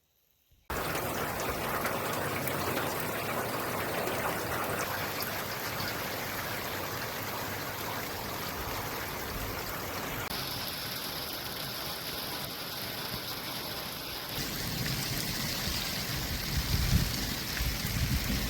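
Steady rain falling, a dense even hiss that starts abruptly, with low rumbling buffets of wind on the microphone near the end.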